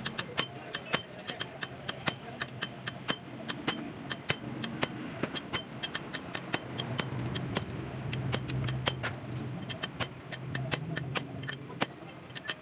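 Hammer blows on a chisel held against the bearing lock collar of a Toyota Tamaraw FX axle shaft clamped in a vise. The sharp metal-on-metal strikes come several a second, each with a short ring, as the collar is driven loose for the bearing's removal. A low steady hum runs underneath.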